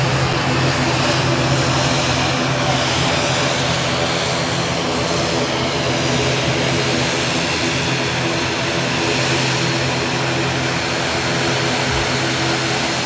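Propeller airliner's engines running steadily with an even low drone.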